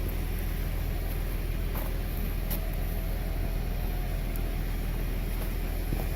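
2008 Honda Pilot being driven on a test drive to check its brakes: a steady low rumble of engine and road noise, with a few faint clicks.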